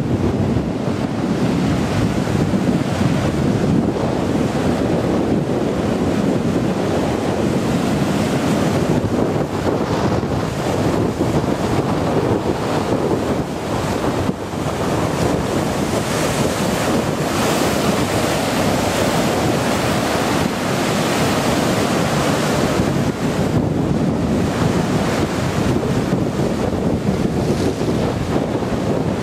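Storm-surge waves breaking over a sea wall and sweeping across a flooded promenade: a continuous, loud rush of surf and churning foam, with wind buffeting the microphone.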